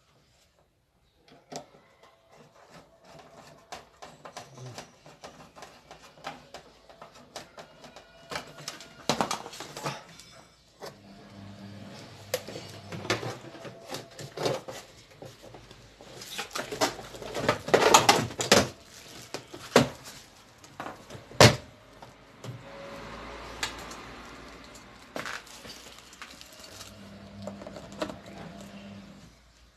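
Hard plastic clicks, knocks and rattles as a plastic washing machine's control panel is worked on with a screwdriver and its cover fitted back in place, with one sharp knock about two-thirds of the way through.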